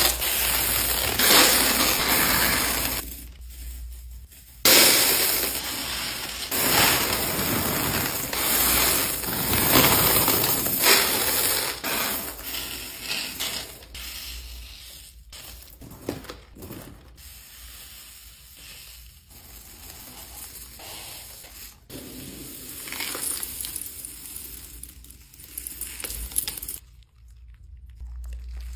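Plastic slime mix-ins (beads, spring beads, sprinkles and sequins) pouring, sliding and clinking against each other and a plastic bin and jar, a dense rattle. It is loudest in the first half, drops out briefly about three seconds in, and fades almost away near the end.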